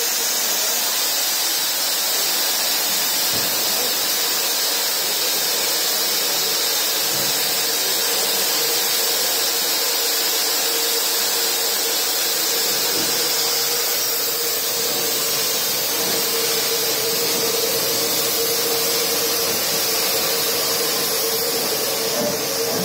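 Steam hissing steadily from a standing LMS 4F 0-6-0 steam locomotive, with a faint steady whistling tone underneath that grows stronger in the second half.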